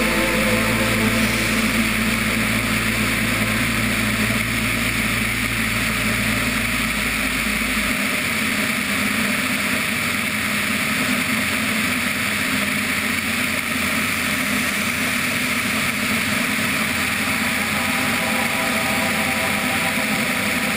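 Steady in-flight noise of a light aircraft heard from a wing-mounted camera: wind rushing over the microphone mixed with the drone of the engine and propeller. A low hum underneath drops away about a third of the way in.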